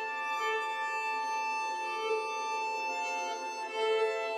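Slow film-score violin music: long held notes sounding together in soft, slowly shifting chords.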